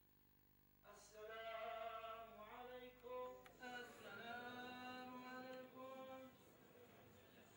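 A man's voice chanting unaccompanied: one long melodic phrase drawn out over several held notes, starting about a second in and ending about six seconds in.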